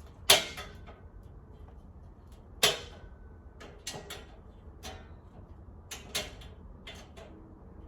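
Steel shelving uprights knocking and clanking as they are fitted together: two sharp knocks, about a third of a second and two and a half seconds in, the second ringing briefly, then several lighter clicks and taps.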